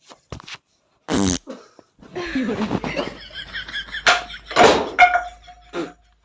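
Fart sounds: a short loud fart about a second in, then a longer, uneven drawn-out fart from about two seconds to near the end.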